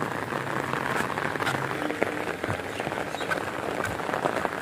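Steady rain falling on open floodwater and wet ground.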